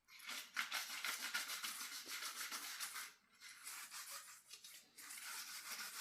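Brush scrubbing a greasy metal stove-hood grease filter with rapid back-and-forth strokes, working off grease loosened by brake cleaner. The scrubbing breaks off briefly about three seconds in and again near five seconds.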